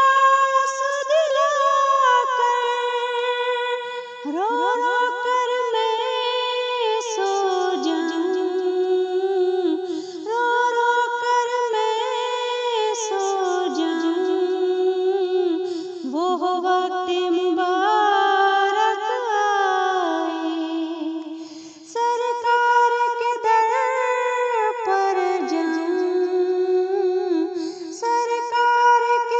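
A female voice singing an Urdu naat, with no instruments. The melody is high and heavily ornamented, sung in lines about six seconds long with a short breath between each.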